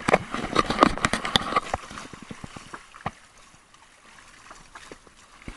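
Knocks and clatter aboard a small outrigger fishing boat, a dense run of sharp knocks for about the first two seconds, then scattered single ticks and knocks.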